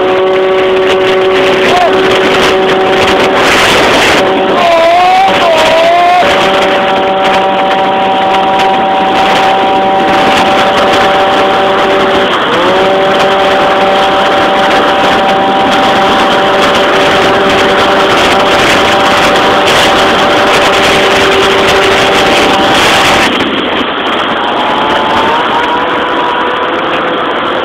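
Yamaha Jog RR scooter's two-stroke engine, tuned with a Hebo Manston kit, held at high steady revs under way. The revs dip briefly and pick up again about halfway through, then fall off near the end before climbing again.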